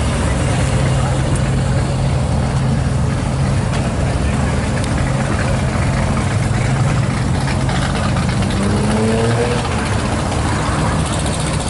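Ferrari Testarossa's flat-12 engine running at low revs as the car creeps away, with a brief rise in revs a little past the middle.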